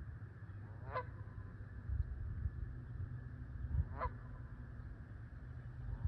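A goose honking: two short single honks about three seconds apart, over a low rumble.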